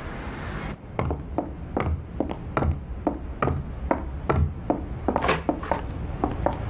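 A steady run of sharp wooden knocks, about two to three a second, starting about a second in.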